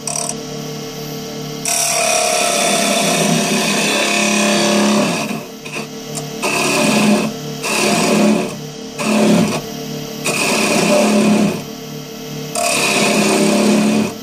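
Wood lathe running with a steady hum while a hand-held turning tool cuts the inside of a spinning wooden bowl. The cutting noise comes and goes in spells of a second or a few seconds as the tool bites and eases off.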